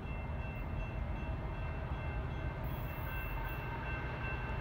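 Horn of an approaching Kansas City Southern diesel locomotive sounding faintly from a distance as a steady chord of high notes, with a lower note joining about halfway through, over a low steady rumble.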